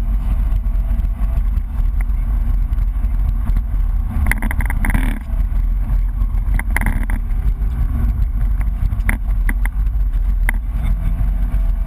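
BMW E30 rally car driven at speed, heard from inside the cabin: steady heavy engine and road noise, with brief sharp knocks and rattles about four and seven seconds in and a few clicks near the end.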